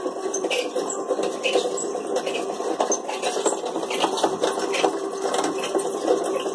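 Continuous mechanical rattling, a dense run of small irregular clicks over a steady low hum.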